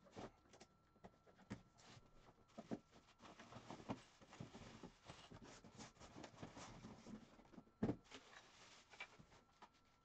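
Faint handling noise: plastic wrapping rustling and metal drum-kit hardware such as a pedal clicking and knocking as it is unpacked, with one sharper knock about eight seconds in.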